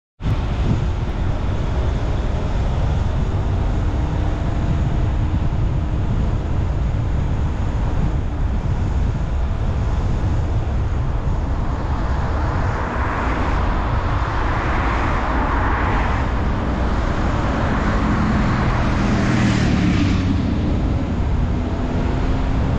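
Steady low rumble of road and wind noise from a car driving a mountain road, with a louder rushing swell about halfway through that fades away near the end.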